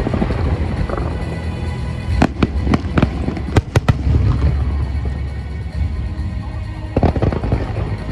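Fireworks shells bursting in the air: heavy low booms throughout, with a run of sharp cracks between about two and four seconds in and another near the end, over music playing.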